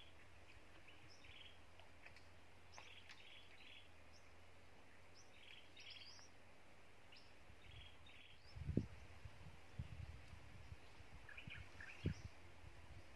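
Birds chirping in short, repeated calls over faint outdoor background noise, with a few dull low thumps in the second half, the loudest about nine seconds in.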